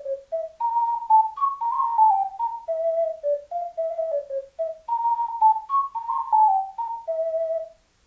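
STL Nightingale Tenor C ocarina, a 12-hole ocarina, playing a melody of clear, pure notes, with a phrase that starts over about five seconds in; the playing stops just before the end.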